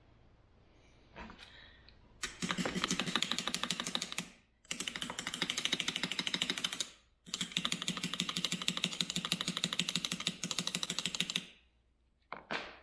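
Rapid, rattling clicks in three bursts of two to four seconds each, then two short knocks near the end: a wooden pattern being rapped loose through a draw spike so it can be lifted out of a sand mold without breaking it.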